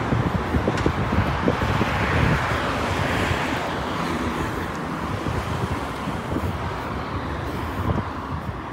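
Road traffic: cars passing on the street alongside, a steady hiss of tyres and engines, with wind buffeting the microphone.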